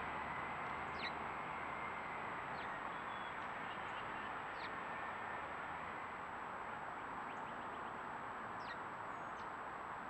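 Small birds chirping a few times in the background, each a short high note falling in pitch, over a steady rushing outdoor background noise.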